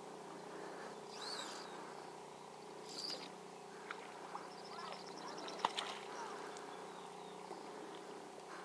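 Hooked trout splashing and swirling at the lake surface while it is fought close to the bank: faint, scattered splashes, with a sharper splash or click a little past halfway.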